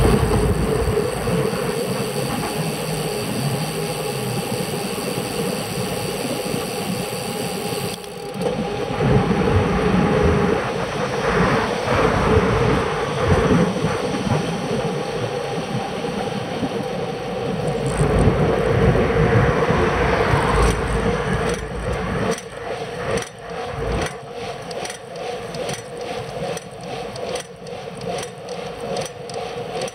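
Wind and road noise picked up by a bicycle-mounted action camera as the bike rolls along a paved road, with a steady hum underneath. It grows louder and rougher about a third of the way in. In the last third it breaks into quick, irregular clicks and knocks.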